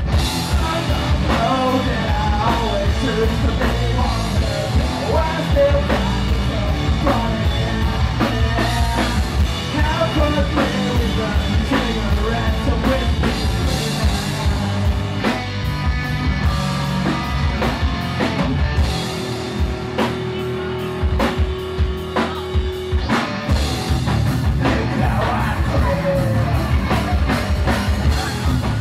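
Rock band playing live: electric guitar, electric bass and a drum kit, with a man singing. About twenty seconds in, the drums and bass drop away for a few seconds under one held note, then the full band comes back in.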